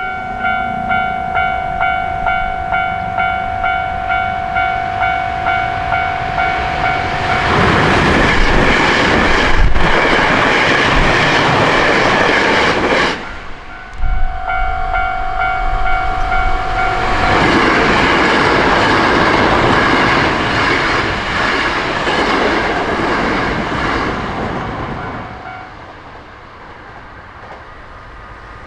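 Japanese level-crossing alarm ringing its electronic two-tone "kan-kan" bell at about two strokes a second. An electric commuter train rushes past over the rails, drowning out the bell, and a second train follows on the heels of a brief gap. The bell stops near the end, leaving quieter rail and traffic noise.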